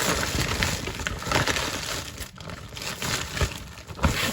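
Rustling and crinkling handling noise with small knocks as someone rummages for another fidget toy close to the microphone.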